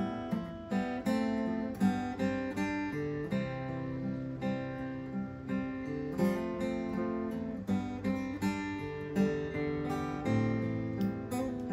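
Mantic AG-370C acoustic guitar played solo, picking a melody over sustained bass notes and chords, with regular plucked and strummed attacks.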